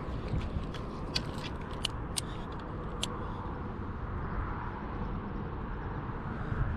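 Steady low outdoor rumble, with a handful of sharp ticks between about one and three seconds in.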